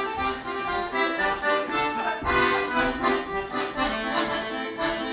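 Piano accordion playing an instrumental passage of a tune, with notes changing steadily throughout.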